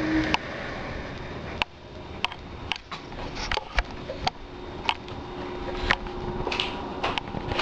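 Room tone: a steady low hum with about a dozen scattered small clicks and taps.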